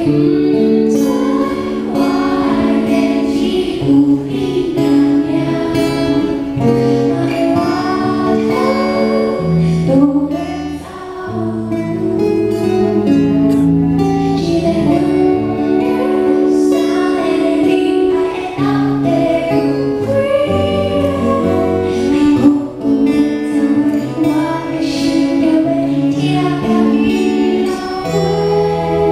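A woman singing a pop song live with a band, her voice carried over sustained chords and guitar.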